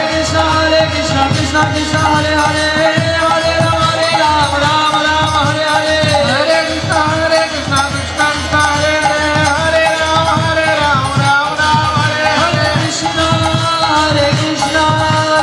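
Devotional kirtan music: voices singing a melody over hand drums keeping a busy, steady beat.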